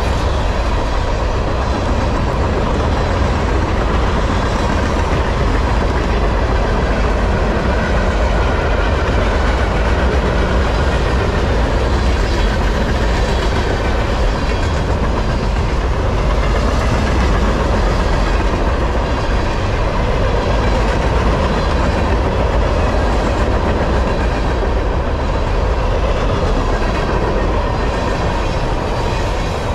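Freight train of empty container flatcars rolling past at close range: a steady rumble of steel wheels on rail, with the wheels clicking over rail joints now and then.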